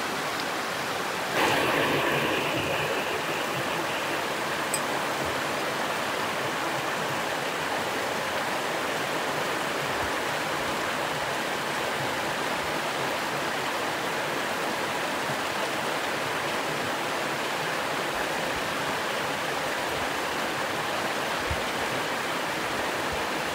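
Steady rush of a fast mountain stream tumbling over rocks, with a short louder swell about a second and a half in.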